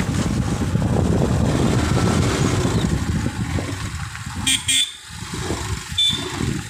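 Motor vehicle running along a road, with engine rumble and wind noise that ease off after about three seconds. Then two short horn toots come about four and a half seconds in, and a third about six seconds in.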